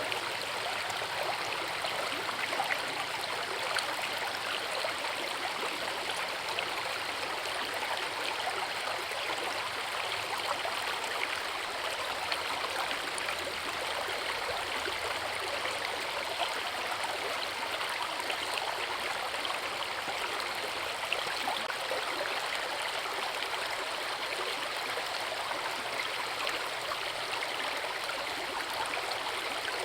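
Forest river with a small waterfall: water rushing and splashing steadily over rocks.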